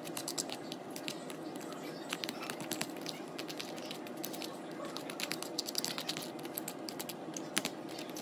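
Fork stirring and mashing a cinnamon-sugar mixture in a clear plastic container: quick, irregular clicks and scrapes of the fork against the plastic. A steady low hum runs underneath.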